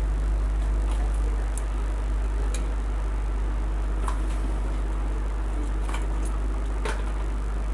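Steady low electrical hum, with a handful of faint sharp clicks and taps as tweezers and small parts touch an opened Samsung phone's circuit board.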